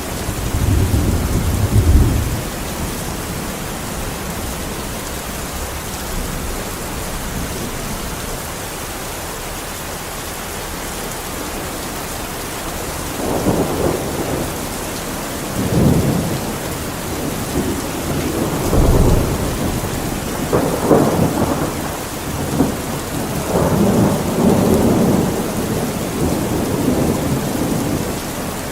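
Steady rain falling, with thunder rumbling: a low rumble about a second in, then a run of rolling rumbles through the second half.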